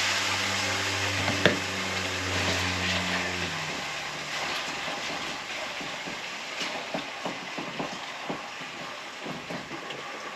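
Chicken pieces sizzling in hot vegetable oil in a non-stick Dutch oven pot, a steady hiss that slowly dies down, with small pops and ticks scattered through it. A low hum runs under the first few seconds and stops about three and a half seconds in.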